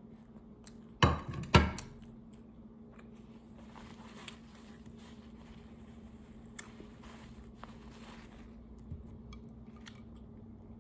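Two sharp knocks about a second in, half a second apart, then faint small clicks and eating noises at a table, over a steady low hum.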